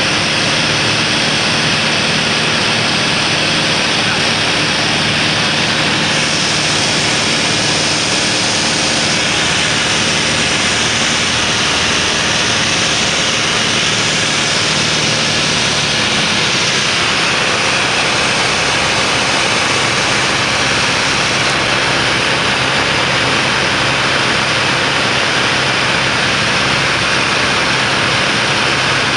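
Aircraft engine and airflow noise heard inside the cabin in flight on the way in to land: a loud, steady rush with a low engine hum whose pitch shifts about 16 seconds in, as the engine power changes.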